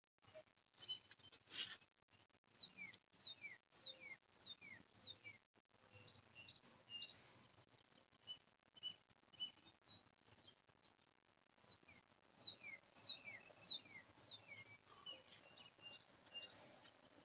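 Faint outdoor birdsong: two runs of quick down-slurred whistled notes, about two a second, the first a few seconds in and the second near the two-thirds mark, with short higher chirps between. A brief rustle comes about a second and a half in.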